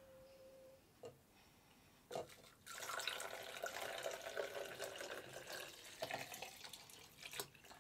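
Amber liquid poured in a steady stream from one drinking glass into another, starting a little over two and a half seconds in and lasting about four and a half seconds. Before the pour there are two light knocks.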